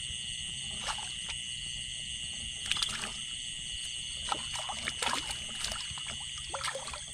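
Shallow water splashing and sloshing in short, irregular bursts over a steady high chorus of frogs and insects.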